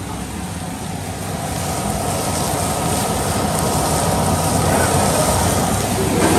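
Steady rushing kitchen noise that grows louder about a second and a half in.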